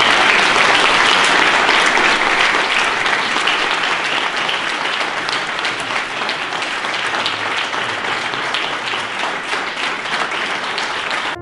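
A roomful of seated guests applauding, the dense clapping slowly fading.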